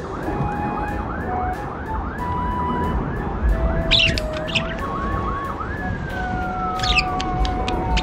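Emergency-vehicle siren in a fast yelping cycle, about three sweeps a second, that changes about six seconds in to one long falling wail. A couple of short budgie chirps sound over it.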